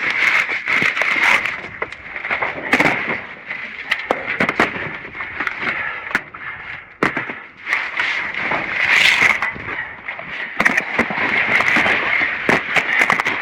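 Dense, irregular crackling, snapping and clattering of debris being pulled and shifted by hand: wood, cardboard boxes and cable being moved around in a dumpster.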